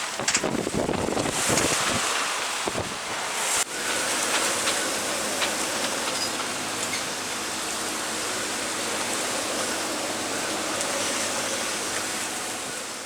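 Strong wind buffeting the microphone over the rush of a heavy sea, gusty and uneven at first. A few seconds in it changes abruptly to a steadier rush of wind and water with a faint low hum beneath, fading out near the end.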